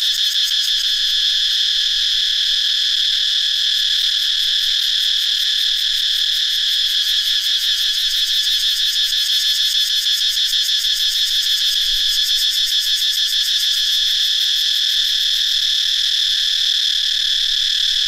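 A dense chorus of cicadas singing: a loud, steady, high-pitched buzz with a fast pulsing, loud enough to read about 84 dB on a sound meter.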